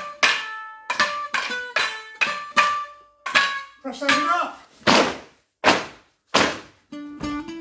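Wooden Morris sticks clashing in time with a dance tune. Partway through, the tune stops and three loud single knocks follow, sticks struck on a wooden floor about three-quarters of a second apart. The tune then starts again near the end.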